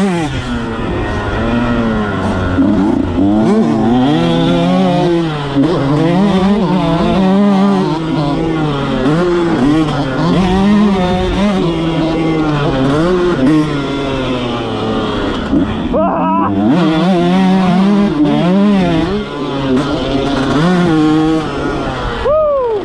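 Motocross dirt bike engine, heard from on the bike, revving hard and falling back over and over as it is ridden around a dirt track. The throttle is shut off sharply about sixteen seconds in and again near the end.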